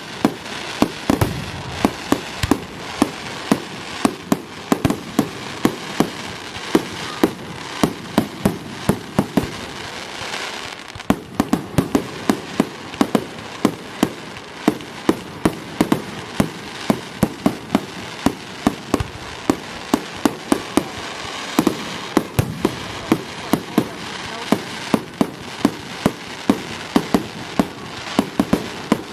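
Fireworks going off in a rapid, continuous barrage of sharp bangs, several a second, over a steady noisy haze. There is a brief lull about ten seconds in.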